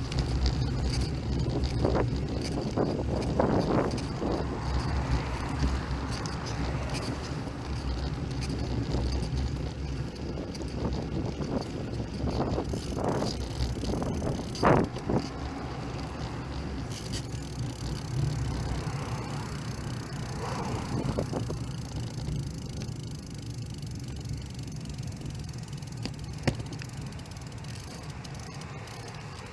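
A bicycle being ridden, heard from a camera mounted on it: steady wind rush and road rumble, with scattered short knocks and rattles. The sharpest knock comes about halfway through. The rumble eases off in the second half.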